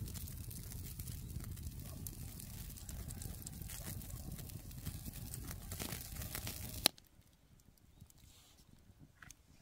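Outdoor ambience with a low rumble and scattered small crackles, cut off by a sharp click about seven seconds in, after which only faint ticks remain.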